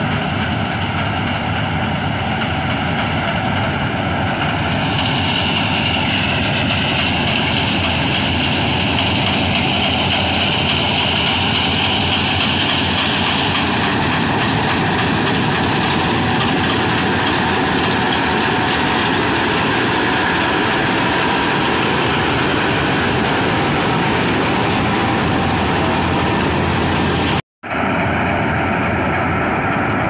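Rice combine harvester running steadily as it cuts standing rice, its engine and threshing machinery making a dense mechanical drone. About five seconds in, a higher whine rises over it for several seconds. The sound cuts out for a split second near the end.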